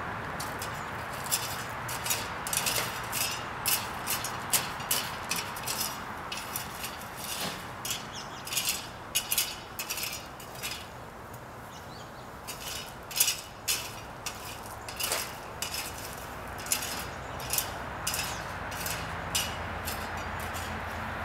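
Irregular scraping and clicking of a long-handled hand tool working gravel and soil, a few strokes a second, over a steady background hiss.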